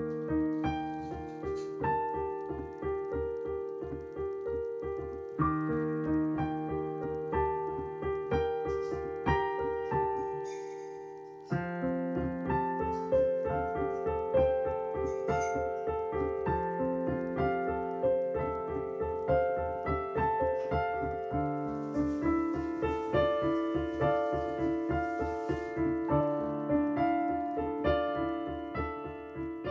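Background piano music: a steady flow of quick struck notes, with a new phrase starting about a third of the way in and a fade-out beginning near the end.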